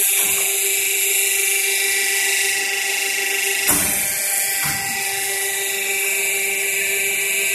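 Hydraulic power pack of a semi-automatic paper plate making machine running, a steady high-pitched whine. A single knock comes a little under four seconds in.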